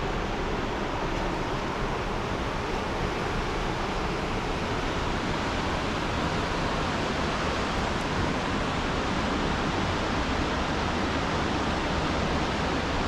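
Fast-flowing river rapids rushing in a steady, unbroken wash of water noise.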